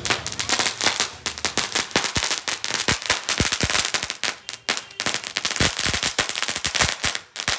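Crackling firework burning, giving off a rapid, irregular string of sharp crackles and pops, many every second.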